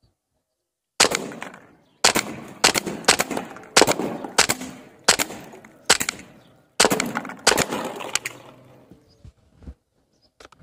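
Snowpeak M40 bullpup PCP air rifle fired on semi-auto: a string of about ten sharp shots over some seven seconds, spaced roughly half a second to a second apart, each with a short ringing tail.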